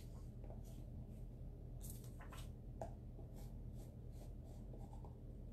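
Faint light taps and soft scrapes from craft supplies being handled, over a steady low hum.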